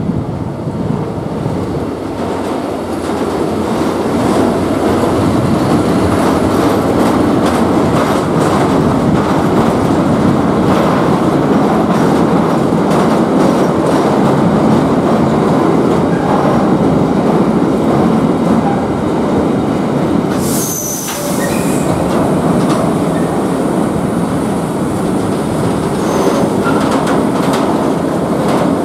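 Freight train of tank wagons behind a class 363 electric locomotive rolling past as it slows to stop in the station. A steady rumble of wheels on rails grows louder a few seconds in, with irregular clicks and clunks from the wheels and couplings. A brief high squeal comes about two-thirds of the way through.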